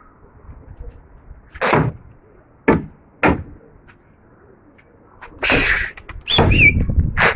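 Domestic pigeons taking off: three sharp wing claps, then longer bursts of wing flapping near the end.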